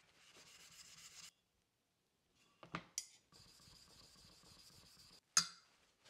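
A thin strip of hardened bandsaw-blade steel being rubbed back and forth on wet sharpening stones to take off its burrs, in two spells with a short silent break. A couple of sharp clicks come midway, and a louder click about five seconds in.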